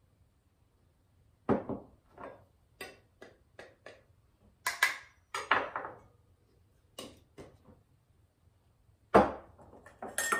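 Kitchen utensils and containers tapping and clinking as flour is measured out: a quick, uneven run of about a dozen sharp knocks, then a pause and one louder knock near the end.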